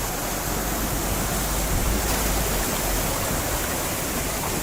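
Fast-flowing river water rushing, a steady unbroken noise.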